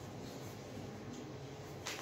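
Quiet indoor room noise with a faint steady hum and a few small clicks, the sharpest near the end.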